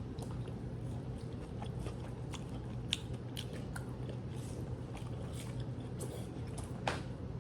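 A person chewing and biting fried food, with a few short crisp mouth clicks, over a steady low hum.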